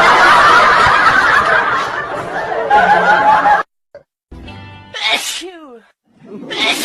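A sneeze over music. After a short break in the sound about three and a half seconds in, a sneeze comes with a voice that falls in pitch about five seconds in.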